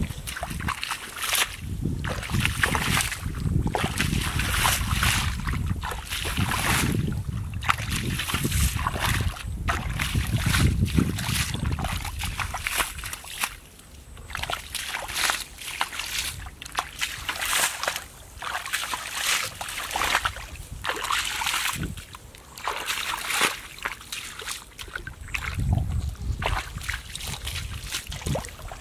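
Bare feet squelching and splashing through wet mud and shallow puddles in a flooded grassy field, at about one step a second.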